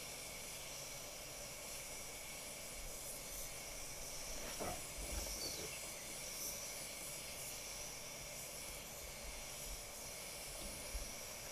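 Compressed-air gravity-feed spray gun hissing steadily while spraying clear coat onto a car body. The hiss is faint.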